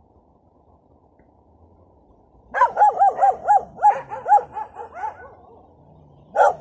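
A dog barking in a quick run of about ten sharp barks, starting about two and a half seconds in and lasting some two and a half seconds. The barking starts again right at the end.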